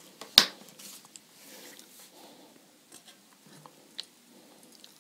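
A single sharp knock about half a second in, then faint, scattered crackling: vinegar fizzing as it reacts with baking soda dissolved in water, giving off carbon dioxide bubbles.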